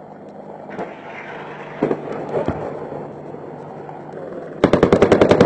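Steady drone of an AH-64 Apache helicopter with a thud about two seconds in, then near the end a burst of rapid automatic fire from the Apache's 30 mm chain gun, about ten rounds a second.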